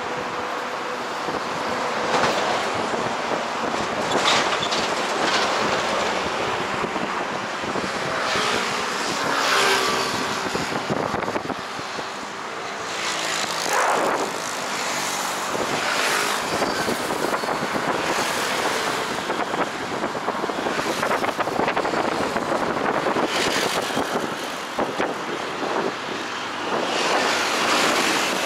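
Road traffic on a busy street: vehicles passing one after another, each swelling and fading every few seconds over a steady wash of road noise.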